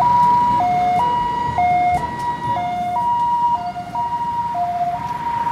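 Ambulance's two-tone hi-lo siren, switching steadily between a high and a low note about once a second, over a low road rumble.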